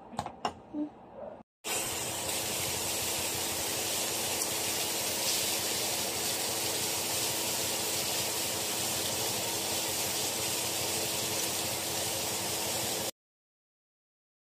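Bacon strips frying in hot oil in a nonstick wok: a steady, even sizzle that starts suddenly after a few short knocks and cuts off suddenly near the end.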